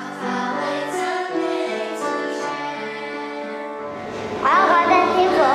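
Children singing a song with musical accompaniment, the tune moving in steady held notes. About four seconds in, a louder, higher voice with wavering pitch comes in over the music.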